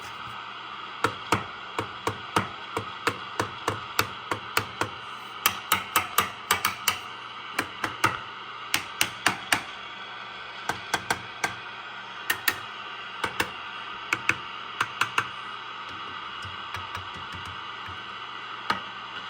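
Swan 700 tube transceiver's receiver hissing with no antenna while its chassis and tubes are tapped with a screwdriver handle. The taps come through as many short, sharp knocks, irregular at about two to three a second, then stop a few seconds before the end, leaving the hiss alone. The owner hears this as the set being microphonic, a sign of a faulty tube or connection.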